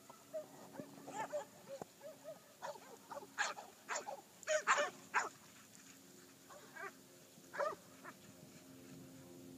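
Cur stock dogs barking in short sharp bursts while working a bunch of cattle. The barks come thickest about three to five seconds in, with one more near the end, over a faint low steady drone.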